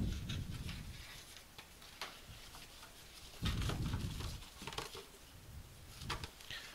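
Handling of cardboard packaging: a dull thump as a box is set down, then scattered clicks and rustles and a second soft thump a few seconds later.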